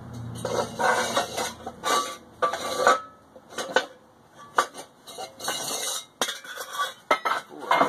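Metal clanking and rattling: a steel pipe and the cut-open steel shell of a small homemade forge knocked and shifted on a metal workbench, in irregular clanks, some with a short ringing tone. A low hum fades out about a second in.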